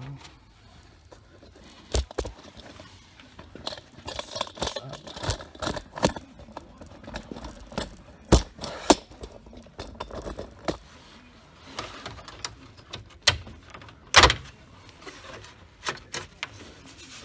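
Clicks, knocks and rattling of a car's plastic lower dash trim panel being worked loose and handled by hand, with a few sharp snaps as clips let go.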